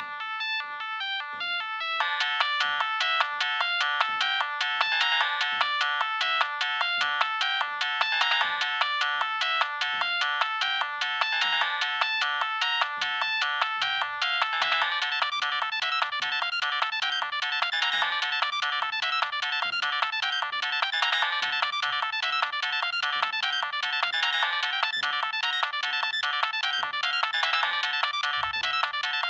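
Siemens C65 mobile phone playing one of its stock polyphonic ringtones, an electronic melody in several parts. It opens with a sparse line for about two seconds, then gets fuller and louder and repeats steadily.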